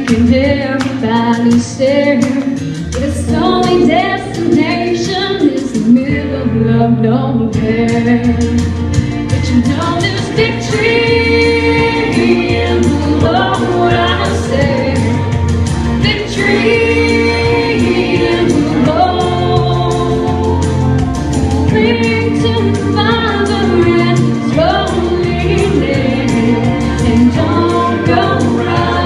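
Female solo voice singing a country gospel song into a microphone, amplified, over instrumental accompaniment with a steady bass line.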